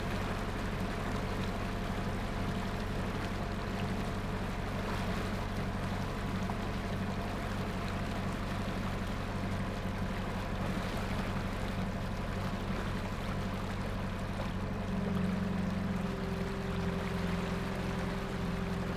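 A motor boat's engine running steadily under way, with propeller wash churning and splashing in the wake. The engine note changes and grows a little louder about fifteen seconds in.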